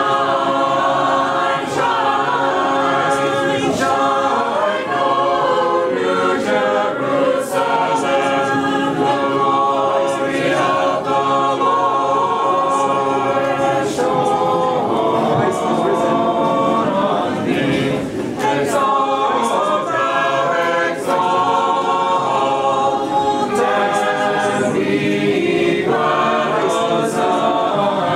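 Unaccompanied voices singing an Orthodox Paschal Vespers hymn together in harmony, without a break.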